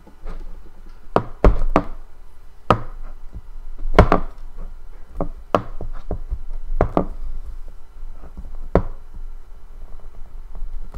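A hard drive's metal case being handled and worked at to get its cover open: irregular sharp knocks and clicks of metal and tool against the casing, the loudest a few seconds apart.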